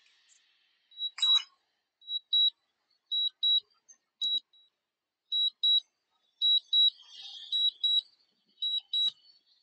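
Drone remote controller's low-battery warning: short high-pitched beeps, mostly in pairs, repeating about once a second, the signal that the battery is low and the drone must return home.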